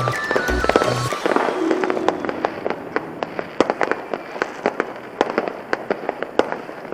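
Fireworks going off in a fast run of sharp crackling pops, several a second. Background music plays at the start and stops about a second in.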